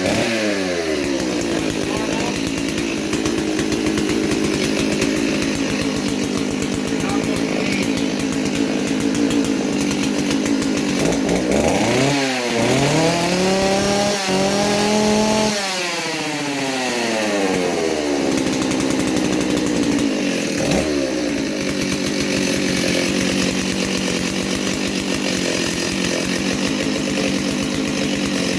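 Stihl 038 two-stroke chainsaw engine running at a steady speed, revved up sharply about twelve seconds in, held for a few seconds, then let drop back, with a short blip later. The carburetor's high-speed jet is set very rich to mask an air leak that the owner suspects on the clutch side.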